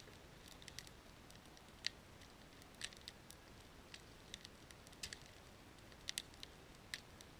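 Wood fire of split logs crackling, with sharp pops at irregular moments, several bunched close together near the end.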